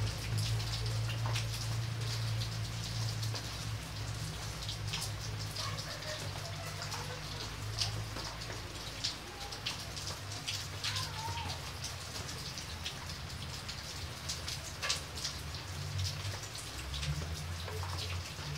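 Rain falling on a muddy flooded puddle: a steady patter of many drops striking the water, with a low hum underneath.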